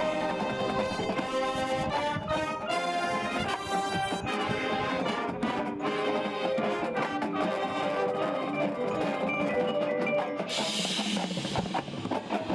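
Marching band playing: brass holding sustained chords over drums and mallet percussion, with a cymbal crash about two seconds before the end.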